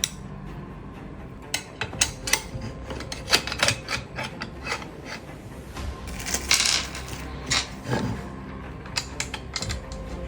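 Irregular mechanical clicks and light knocks, with a brief hiss about six and a half seconds in.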